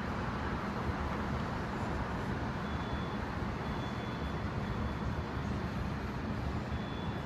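Steady city traffic noise: a continuous din of vehicles on the streets below, with a faint high tone that comes and goes from about three seconds in.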